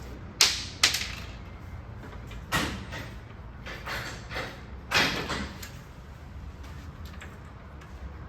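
Sharp knocks and clunks of the swim teaching platform's parts being handled during assembly, a handful of separate hits, the loudest about half a second in, a second in, and about five seconds in.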